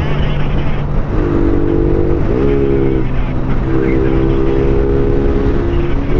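Underbone motorcycle engine running at cruising speed, its note shifting abruptly about two seconds in, with wind rushing over the helmet-mounted microphone.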